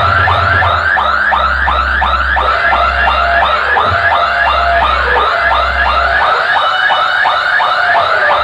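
DJ sound system playing a loud, fast-repeating electronic siren-like chirp, about three sweeps a second, over long deep bass notes with short breaks.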